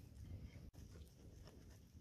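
Near silence: a low rumble with faint scattered clicks and scrapes of knife and pineapple handling, broken by a brief dropout about two-thirds of a second in.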